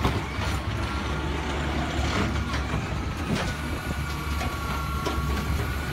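Garbage truck's diesel engine running steadily as its automated side-loader arm lifts a trash cart, with scattered clanks and a steady whine that starts about halfway through.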